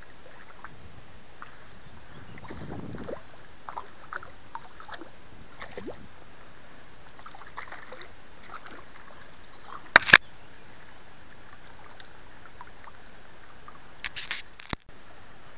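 Hooked trout splashing and thrashing at the surface as it is played and drawn into a landing net, over the steady rush of a shallow river. A single sharp knock comes about ten seconds in, and a quick cluster of knocks comes near the end.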